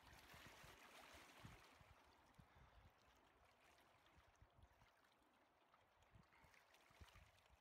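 Very faint lapping and trickling of river water against rocks, a little quieter after the first couple of seconds.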